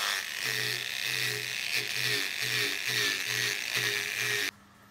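Angle grinder running against the rusty threaded steel screw of a C-clamp held in a vise, grinding off rust, with an uneven low chatter under a steady whine. It cuts off sharply near the end.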